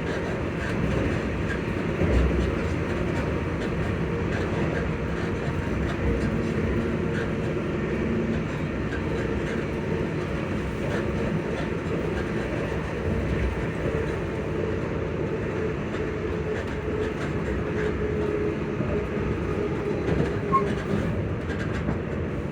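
ScotRail Class 334 electric multiple unit running, its traction motors giving several steady, slightly wavering tones over a continuous rumble of the train in motion. The uploader calls these motor sounds odd.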